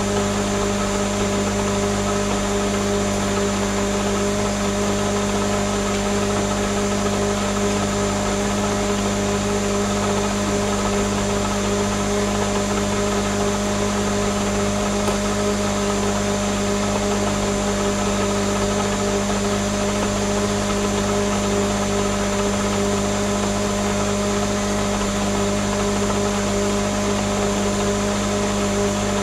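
Countertop blender motor running steadily at one speed as it blends a yellow-green mixture, a constant hum that does not change.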